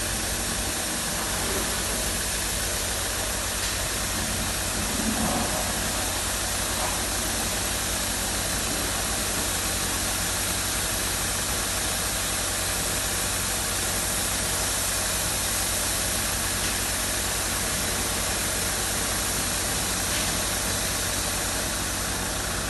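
Golden Boat touchless car wash machine running: a steady hiss of high-pressure water spraying onto the car, over a steady low machine hum.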